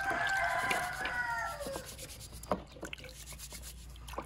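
Eggs being scrubbed with an abrasive scouring pad in a basin of water: rubbing with a few light clicks of shell. A drawn-out call that slides down in pitch fills the first second and a half and is the loudest sound.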